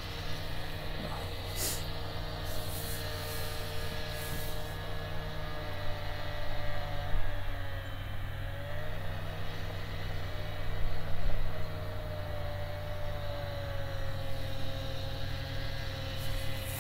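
The Old Town Sportsman Autopilot kayak's electric motor runs with a steady hum. Its pitch shifts slightly now and then as the motor speed changes.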